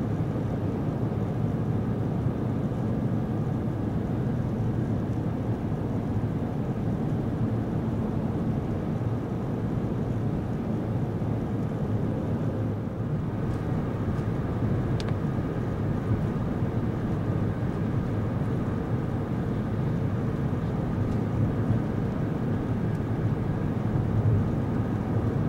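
Steady road and engine noise heard inside a car cabin while driving along a highway.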